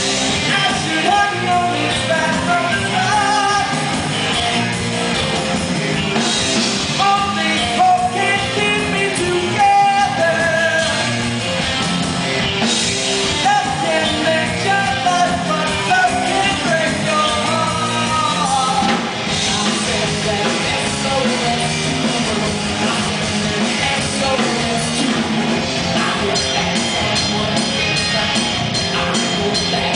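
Live rock band playing a song: a male lead singer over electric guitar, bass guitar and drum kit, amplified through the stage PA.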